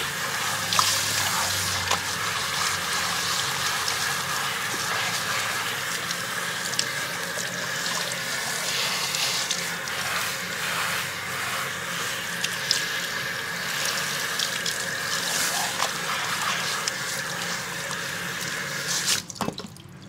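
Handheld shower sprayer running steadily, water spraying through wet hair and splashing into a salon shampoo basin while fingers work the hair; the spray shuts off suddenly near the end.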